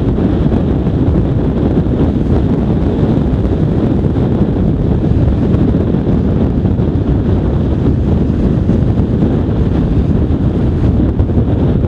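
Strong wind buffeting the microphone: a loud, steady, low rumbling noise with no let-up, from the tornado's gusty inflow winds.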